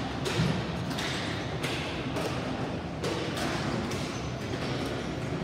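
Ball hockey play: several sharp knocks and thuds of sticks and the plastic ball striking the floor and boards, over a steady low background.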